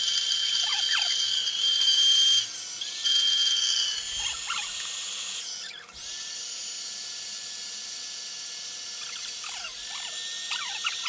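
Small battery-powered electric air pump whining steadily as it inflates a Naturehike air sleeping mat. The whine stops briefly at about two and a half seconds, and after a break about six seconds in it carries on fainter. A few faint short squeaks sound over it.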